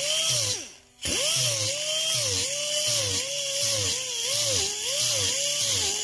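Small rotary sanding disc grinding through a paint blister on a car's steel roof down to rust under fresh paint. Its whine dips and rises as it is pressed on and eased off. It spins down to a stop about half a second in, then spins back up a moment later.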